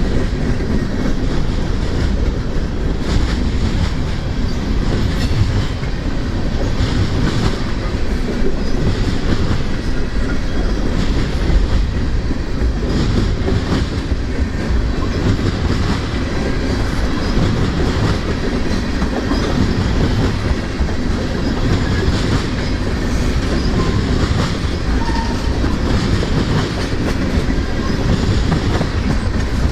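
Freight train cars rolling steadily past, a continuous heavy rumble with the wheels clacking over rail joints.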